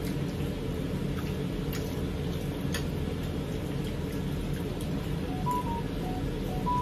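Quiet room with a steady low hum and a few faint clicks of fingers and food on plates as two people eat by hand. From about five seconds in, a few short high notes begin in a simple repeating pattern.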